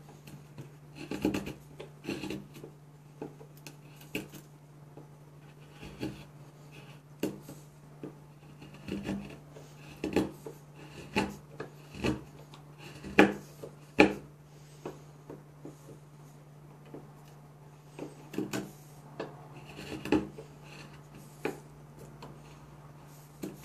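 Mora Companion carbon-steel knife whittling a pine block: short scraping cuts come about one a second, each taking off a shaving, with a pause of a few seconds after the middle. The carver believes the edge has almost completely gone dull, so each stroke takes more force.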